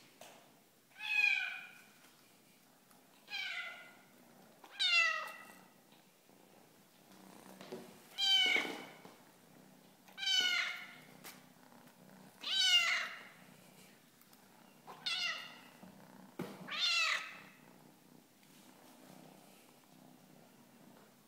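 Black kitten meowing eight times, a second or two apart, each meow falling in pitch.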